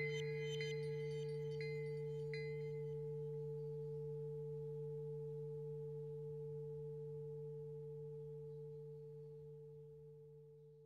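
Singing bowl ringing on after a strike, a deep steady hum that slowly dies away and fades out near the end, with a few bright chime strikes over the first two seconds or so.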